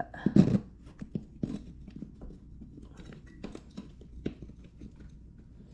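Scattered light clicks and knocks of wheel parts being handled and pressed into place during a tire change, with a louder knock about half a second in.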